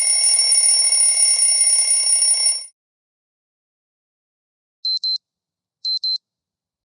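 Redmi Note 14 5G preset ringtones: a steady, bright electronic ringing tone cuts off about two and a half seconds in. After a pause, short high beeps follow in pairs, two pairs about a second apart.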